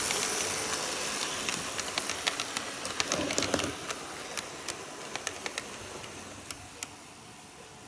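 HO-scale model diesel railcar train in red-and-cream JNR express livery (KiHa 58 series) running past, a steady rolling hiss with sharp wheel clicks over the track joints. The rolling noise fades as the train moves away, and the clicks thin out in the second half.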